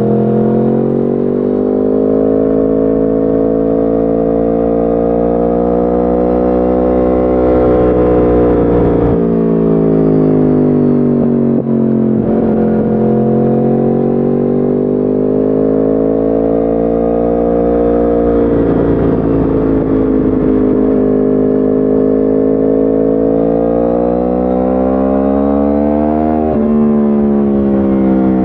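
A 2010 Yamaha R1's crossplane inline-four engine, fitted with an Akrapovic exhaust and no catalytic converter, running under way. Its note climbs slowly and falls back three times, with a sharp drop near the end.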